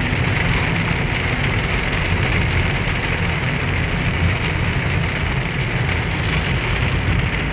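Heavy rain falling on a car's roof and windshield, heard from inside the cabin, over the steady low rumble of the moving car's engine and tyres on a wet road.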